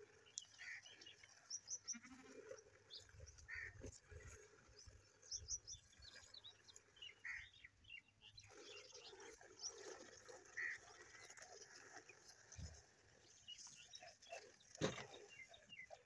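Faint birds chirping, with a goat bleating now and then. A single sharp knock comes near the end.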